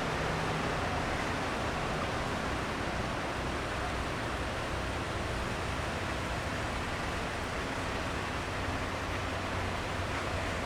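Steady rushing background noise with a faint low hum underneath and no distinct events.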